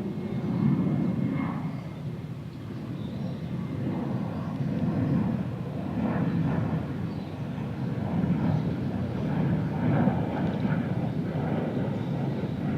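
Airplane engine rumble overhead: a low, steady drone that swells and eases, over the background of a city park.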